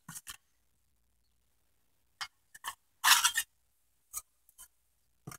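Scattered short rustles and light taps of items being handled and stacked by hand, including a folded T-shirt. The longest rustle comes about three seconds in.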